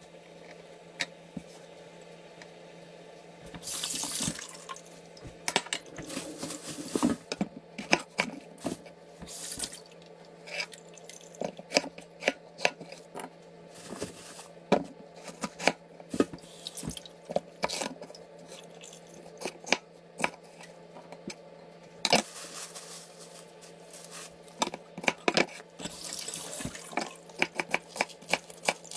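Chef's knife knocking on a wooden cutting board in scattered chops and slices, with a kitchen tap running in short bursts of about a second, several times, as vegetables are rinsed. A steady low hum lies underneath.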